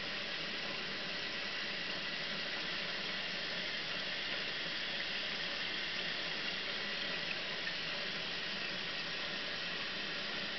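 Bendix 7133 Autowasher Deluxe Electronic front-loading washing machine during its rinse, with a steady, even hiss of water running into the machine.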